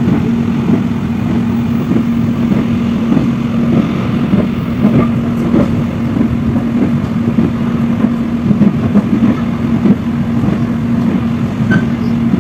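Cabin noise of the Soekarno-Hatta airport rail link's electric train running at speed: a steady low rumble with a constant hum, and scattered small knocks from the running gear.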